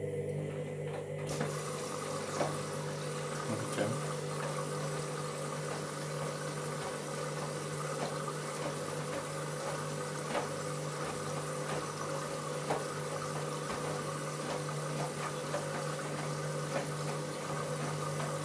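Washing machine running at the start of a wash, water rushing in steadily over a low hum, with scattered light knocks.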